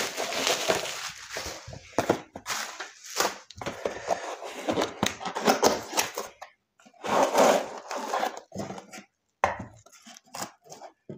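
Bubble wrap crinkling and a small cardboard box being handled and opened by hand: irregular rustles and clicks with short pauses.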